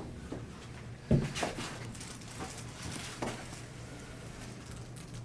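Neck (cervical spine) adjustment: one sharp crack about a second in, then a few fainter clicks.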